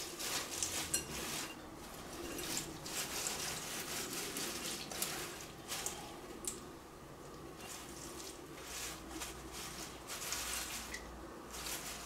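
Paper towel rustling and crinkling in repeated bursts as a hand presses and rubs it over a bowl of freshly toasted chulpe corn kernels, blotting off excess frying oil, with a few sharp clicks.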